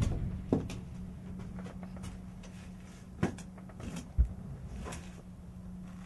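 Knocks and bumps of someone climbing in through a window frame: a loud knock right at the start, more about half a second in and just past three seconds, and a deep thump just after four seconds, over a steady low hum.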